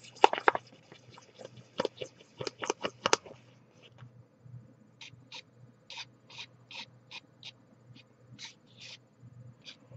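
A small plastic fork scraping and knocking in a plastic tray as it works stiff, hardened chocolate sauce. A quick run of sharp clicks comes in the first three seconds, then lighter, evenly spaced scrapes about twice a second.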